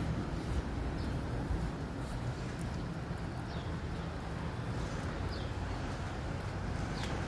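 Street ambience: a steady low rumble of traffic, with a few short, falling bird chirps.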